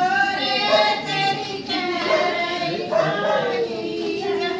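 Several women singing a folk song together as they walk; in the second half a long held note slides slowly down.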